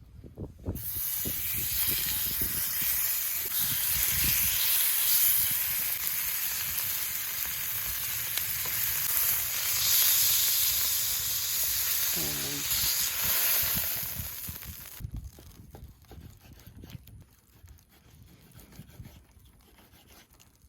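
Food sizzling in a hot pan, a dense steady hiss that starts suddenly about a second in and cuts off suddenly about three quarters of the way through, leaving only faint scattered sounds.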